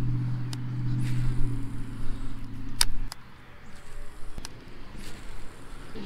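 A steady low engine-like hum that stops about three seconds in, with a few sharp clicks and a low rumble of wind on the microphone.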